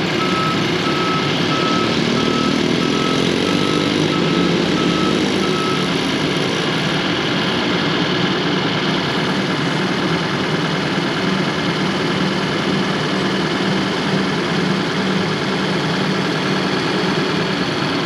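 Crawler bulldozer's diesel engine running steadily, its reverse alarm beeping at an even pace until it stops about six seconds in. The engine note climbs briefly a couple of seconds in as the machine is worked.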